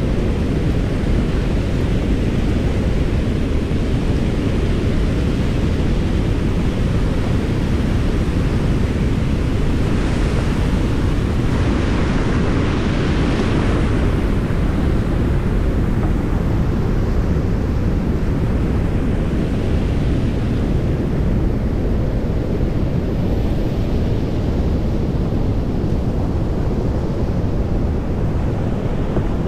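Rushing whitewater and water pouring over a low dam spillway, with wind buffeting the microphone. The hiss of the water grows brighter for a few seconds around the middle, as the kayak passes closest to the dam's outflow.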